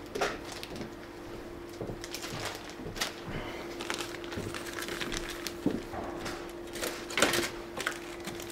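Clear plastic kit bag crinkling as grey styrene model-kit sprues are pulled out of it and laid in the cardboard box, with irregular clicks and taps of the plastic parts.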